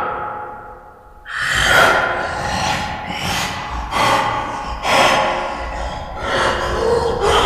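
A person gasping and breathing heavily as a homemade horror sound effect. After a short pause, a string of loud, rapid gasps follows, about one a second.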